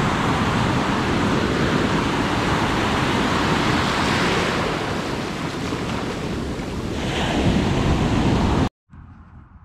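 Heavy ocean surf breaking and washing up the beach, with wind buffeting the microphone. It swells a little about four and seven seconds in and cuts off abruptly near the end.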